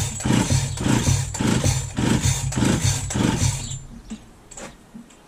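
Husqvarna 346XP two-stroke chainsaw engine cranked on its pull-starter with a compression gauge fitted, a rhythmic chuffing of about two strokes a second that stops after about four seconds. The gauge reads only about 35, which the owner calls no good: too little compression for the saw to start.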